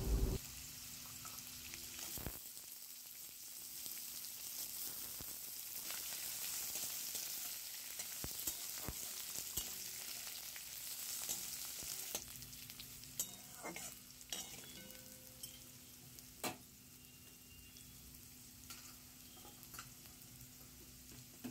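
Diced potato and carrot frying in refined oil in a steel kadai: a faint, steady sizzle, with a metal spatula scraping and clicking against the pan now and then. The sizzle dies down lower in the second half.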